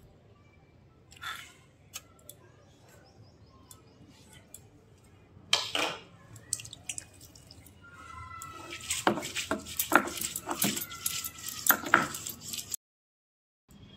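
Stone roller grinding sliced onions on a flat grinding stone (sil-batta): a loud scrape about halfway, then from about two-thirds of the way in a dense run of stone knocks and grinding, with the ringing clink of glass and metal bangles on the wrists. It breaks off suddenly near the end.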